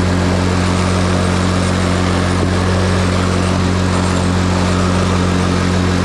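ATV engine idling steadily just after a jump-start, having not run for about two months. The owner takes the engine to be sound and the starting trouble to lie in the electrical system.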